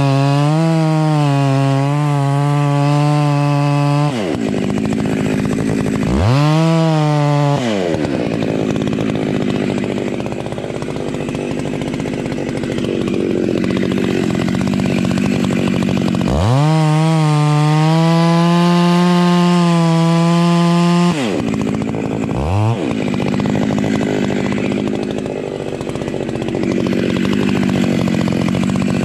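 Two-stroke chainsaw sawing through the trunk of a large Sitka spruce at its base. The engine holds a high, steady whine, drops off sharply about four seconds in, rises and falls once more, then runs rougher through the wood; it climbs back to a high steady pitch about halfway through for several seconds and falls off sharply again.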